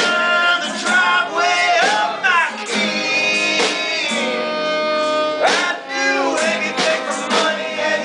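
Live acoustic band playing a song: strummed acoustic guitar, bowed fiddle and a small drum kit, with a singing voice on top. A drum stroke falls about once a second, and a long note is held through the middle.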